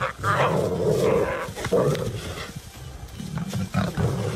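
Lion growling in several rough bursts, the first and longest lasting about a second and a half.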